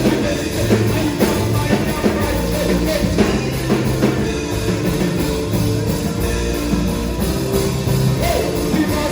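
Loud gospel worship music from a band with drum kit, bass and sustained chords.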